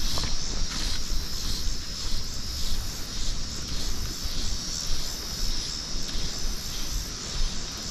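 Steady high-pitched drone of summer insects, with a low uneven rumble on the microphone underneath.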